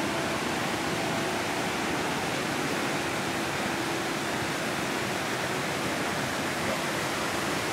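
Steady, even rushing noise with no distinct events, and a faint steady hum beneath it.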